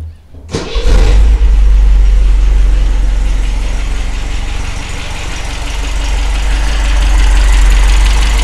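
1978 MGB's 1.8-litre B-series four-cylinder engine, fitted with a Weber carburetor, being started: it cranks briefly and catches about a second in, then idles steadily, running fine.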